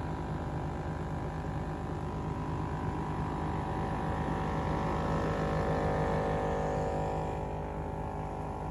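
Portable air compressor running with a steady hum, inflating the freshly patched tire. It grows slightly louder in the middle and eases off toward the end.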